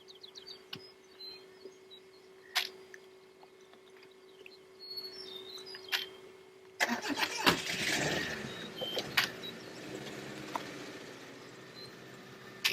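A few sharp knocks, then about seven seconds in an engine starts with a loud burst and keeps running.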